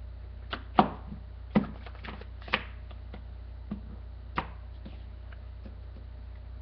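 Trading cards and a card deck being handled and tapped on the table while the deck is cut: scattered irregular clicks and knocks, the sharpest just under a second in, over a steady low hum.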